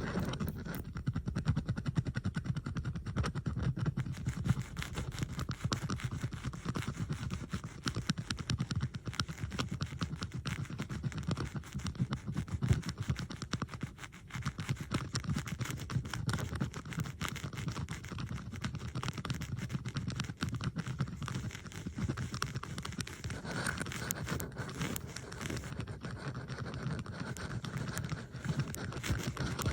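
Bobby pins handled close to the microphone, a dense, continuous stream of small clicks and scrapes from several recordings layered over one another.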